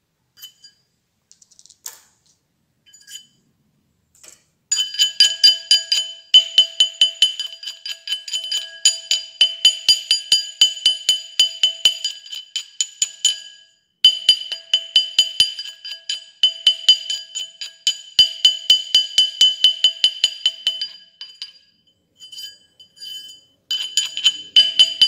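A small steel-faced hammer taps a metal ring band on a steel ring mandrel in quick runs of ringing metal strikes, several a second, with two short breaks. The blows stretch the ring to enlarge it. A few faint clicks come before the hammering starts.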